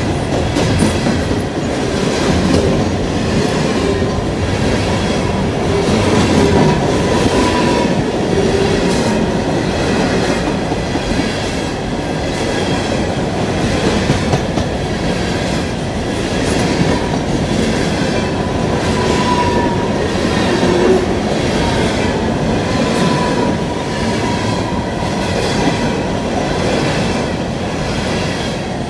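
Empty CSX open-top coal hopper cars rolling past, steel wheels clicking steadily over rail joints under a continuous rumble. A thin wheel squeal comes and goes.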